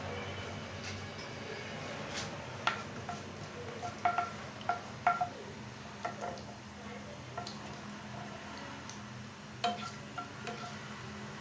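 Plastic spatula stirring cumin and mustard seeds in hot oil in a nonstick kadhai: irregular light clicks and taps, each making the pan ring briefly, over a steady low hum.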